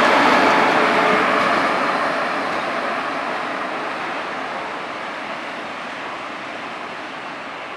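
Red DB electric locomotive running on its own along the station tracks and moving away, its running noise from wheels and rails fading steadily.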